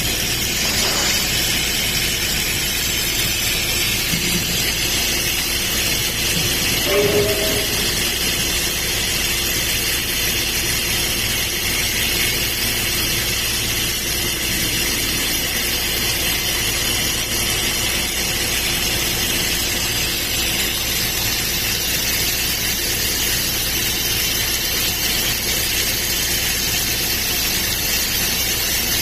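Laser cladding welding machine running with a steady hiss, with a brief two-note tone about seven seconds in.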